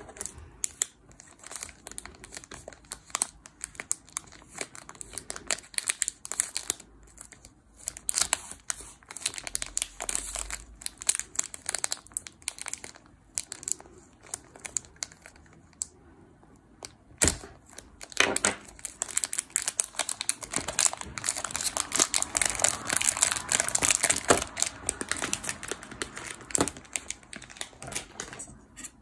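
Clear plastic film wrapped around a speed cube crinkling and crackling as hands handle it, in irregular bursts that grow busier and denser in the second half.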